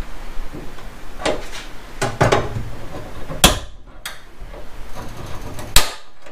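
Sharp clicks and knocks from hands working the wiring-harness clips on the bare metal inner panel of a car's trunk lid, with two loud snaps, one about halfway and one near the end.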